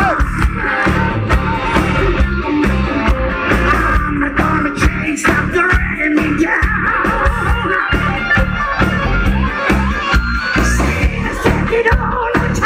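Heavy metal band playing live at full volume, recorded from the audience: electric guitars, bass and a steady drum beat.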